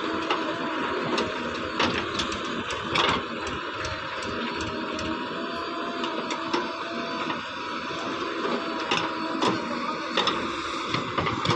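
A small motor whirring steadily, with scattered clicks and knocks over it.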